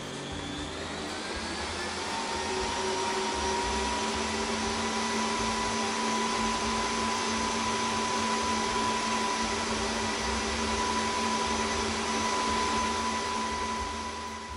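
Kenwood Cooking Chef stand mixer motor running, its whine rising in pitch over the first couple of seconds as it speeds up, then running steadily as it beats butter and sugar into a cream.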